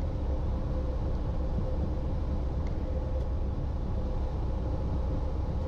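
Steady cabin noise of a Cessna 170 descending with the power pulled back and full flaps: the engine and propeller at low power droning low under the rush of air past the cabin, with a faint steady hum.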